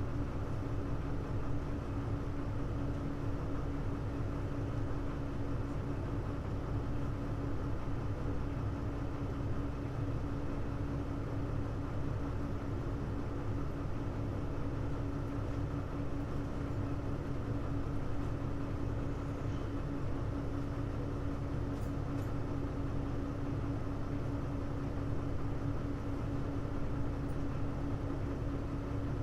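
Hino U-HU2MLAA city bus running at a steady speed, heard from inside: a continuous low engine and drivetrain rumble with one constant tone held over it. This is the bus known as an unusual-noise car.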